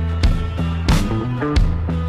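Background music with a steady beat: three drum hits over sustained bass notes.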